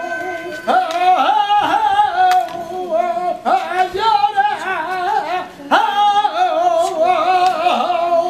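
A saeta: one voice singing unaccompanied in flamenco style, long phrases with wavering, ornamented pitch, each run on a lamenting 'ay', with short breaks for breath about half a second in and past the middle.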